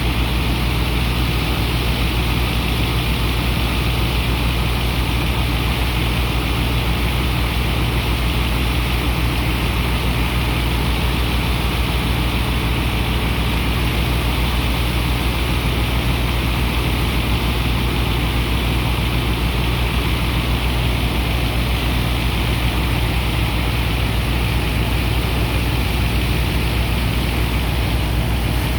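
Heavy diesel engine and pump of a sand dredger running steadily while unloading sand: a constant low drone with an even hiss over it.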